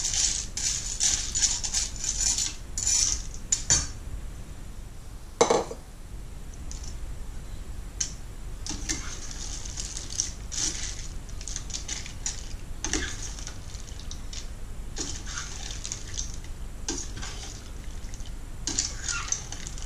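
A spatula stirring dry penne and fusilli through curry sauce in a stainless steel pan: irregular scraping and rattling of pasta against the pan. One louder knock comes about five and a half seconds in.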